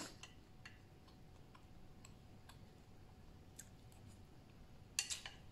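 A person eating with a metal spoon from a bowl: faint, scattered clicks and smacks, with a louder quick run of them about five seconds in.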